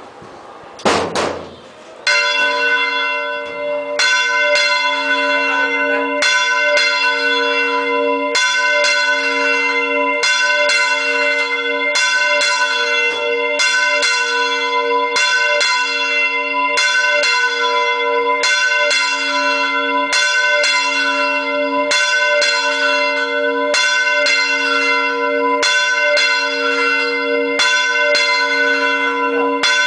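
Large bronze church bell swung in full rotation on its wooden counterweighted yoke, its clapper striking roughly once a second with the tone ringing on between strikes. A single knock about a second in, as the bell is set moving.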